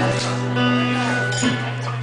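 Guitar chords strummed and left ringing, with a few sharper strums.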